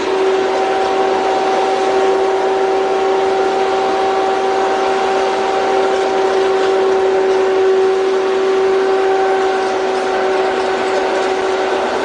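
A machine running steadily: a constant whine held at one pitch over a steady mechanical noise, with no change in speed or load.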